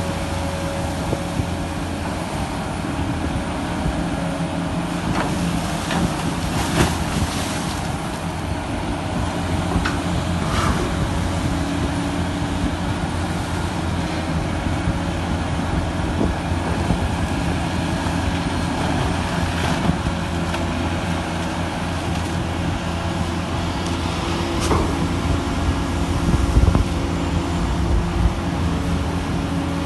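Diesel machinery of a backhoe dredger running steadily with a low hum, with a few short clanks and knocks scattered through.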